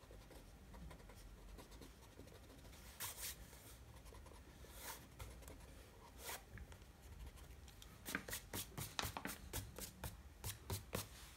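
Drawing tool scratching on sketchbook paper: a few single strokes, then near the end a quick run of short, quiet strokes at about five a second.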